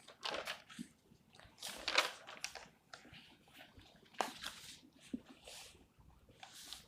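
Faint, irregular scratching and rustling noises in short bursts, from hand work at a desk.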